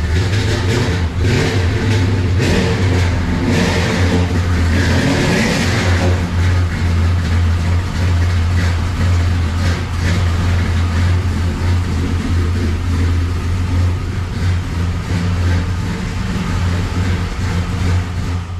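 A V8 truck engine running loud and steady at idle, revved briefly about four to six seconds in. The sound cuts off abruptly at the end.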